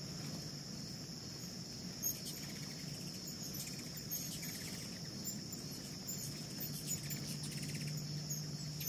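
Steady high-pitched insect chorus, crickets, running without a break. Over it come several short bursts of rapid high chittering, the chip calls of ruby-throated hummingbirds squabbling around the feeder.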